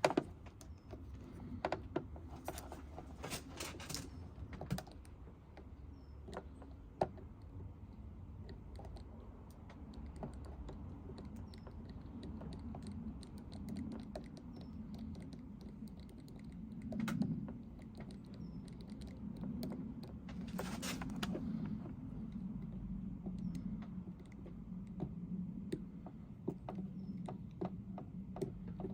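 Scattered light clicks and taps of tools and plastic parts being handled during a headlamp repair, over a low steady hum.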